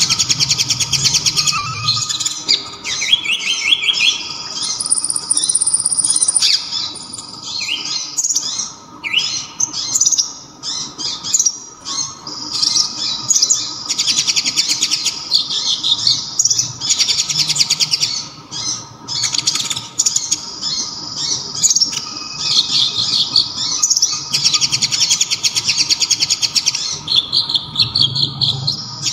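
Konin (kolibri ninja), a small sunbird, singing loud, sharp, high rapid trills and chirps in phrases of a second or two with short pauses between them. A faint steady hum lies under the song.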